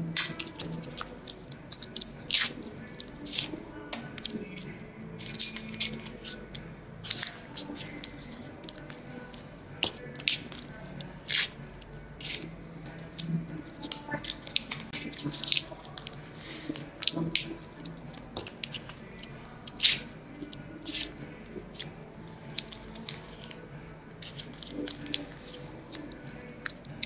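Irregular crinkling and crackling of foil gel-polish remover wraps as they are handled and folded around fingertips.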